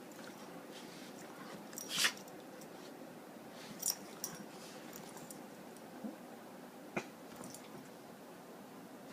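A cat and a dog tussling: a few short, sharp scuffling noises. The loudest comes about two seconds in, with smaller ones near four and seven seconds, over a low steady background.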